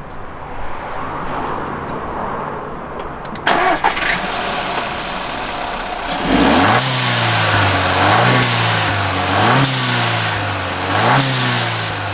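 VW Golf Mk6 1.4 TSI turbocharged four-cylinder petrol engine starting, catching about six seconds in with a rise in revs, then blipped three times, each rise and fall in pitch carrying a hiss, just after a blow-off valve adapter has been fitted.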